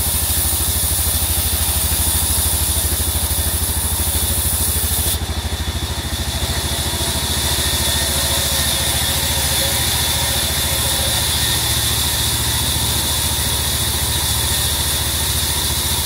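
Large band saw running with a deep, rapidly pulsing drone from its drive, its blade ripping through a teak plank. The high hiss shifts about five seconds in.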